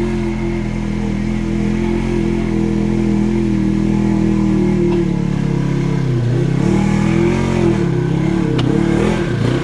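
Polaris RZR side-by-side's engine running hard under load as it climbs a steep rocky ledge, holding steady revs at first, then dipping and surging in pitch several times from about halfway as the throttle is pumped.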